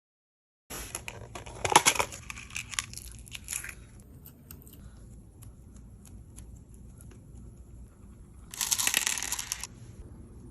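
Slime being squeezed and pressed close to the microphone, crackling and crunching. A dense burst of crackles comes just after the start and fades over a few seconds, then a second burst about nine seconds in.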